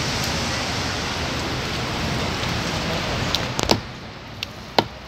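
Hot oil sizzling steadily as fish fries. About three and a half seconds in the sizzle drops away, and a knife blade knocks sharply on a wooden chopping block a few times.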